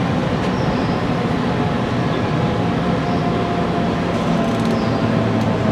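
Interior running noise of a JR Kyushu 817 series electric train: a steady rumble of wheels on rail with faint steady tones from its Hitachi IGBT-VVVF traction drive, as the train nears a station.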